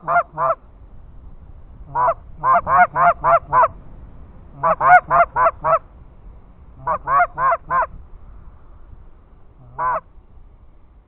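Canada goose calling in quick runs of four to six loud honks, groups about two seconds apart, with a single honk near the end. This is typical of a hunter's hand-blown goose call used to draw flying Canada geese in to the decoys.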